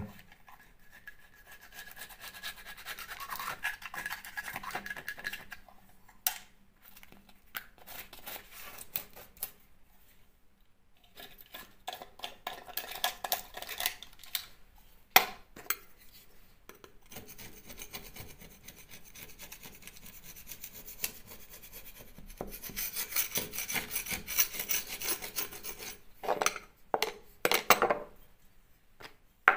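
Utility knife blade scraping and digging out loose, crumbly plaster that moisture has loosened from the wall beside a window. It comes in bouts of scratchy rasping with short pauses and a few sharp taps, the loudest about halfway through.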